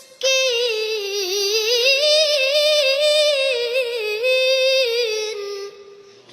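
A single high-pitched voice reciting the Quran in melodic tajweed style, drawing out a long ornamented note with a wavering, sliding pitch. It breaks briefly at the start for breath and fades out near the end.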